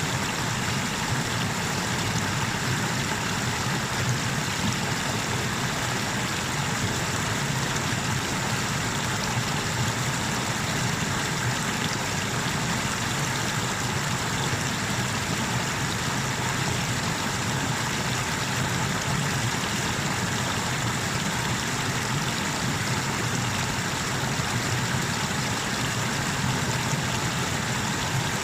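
Water pouring over a small river waterfall, a steady, unbroken rushing noise that does not change.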